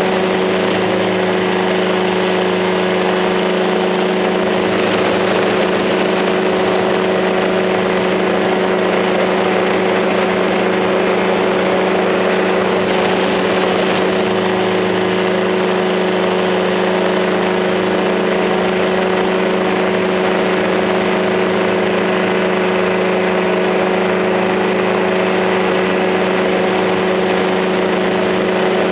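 Camera drone's motors and propellers giving a steady, unchanging hum with several pitched tones, as when it hovers or cruises.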